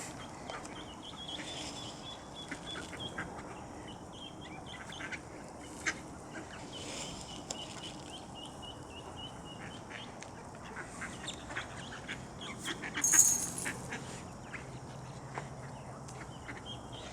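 A flock of mallards feeding on scattered corn: low quacks, many small clicks and rustles of bills pecking, and now and then thin high calls. About thirteen seconds in there is one short, louder rush of noise.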